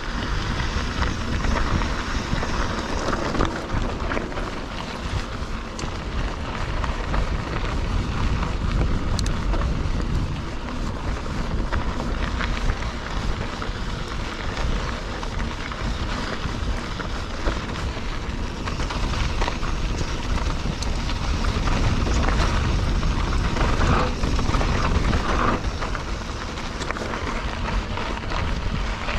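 Mountain bike riding over a dirt trail: a steady rumble of tyres on rough ground with constant small rattles and clicks from the bike, and wind on the microphone.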